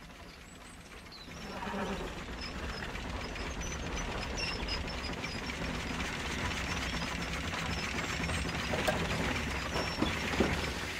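Early horseless carriages driving, a steady mechanical clatter and rattle that builds up about a second and a half in, with a louder knock near the end.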